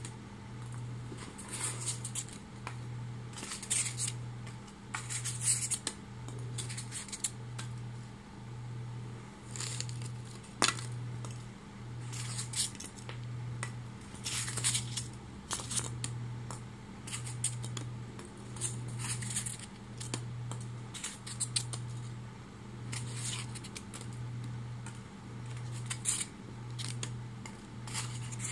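Styrofoam packing peanuts shifting in a plastic bin liner, giving irregular squeaky crackles and crinkles. Under them a low hum pulses on and off about once a second, and there is one sharp click about ten seconds in.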